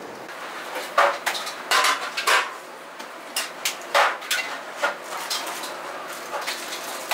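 Kitchen prep clatter: irregular sharp clanks and knocks of pots, utensils and dishes, starting about a second in, some with a brief ring.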